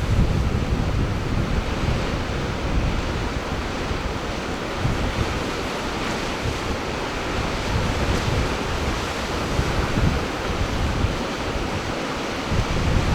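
Steady rush of sea surf with wind buffeting the microphone, the low rumble rising and falling in gusts.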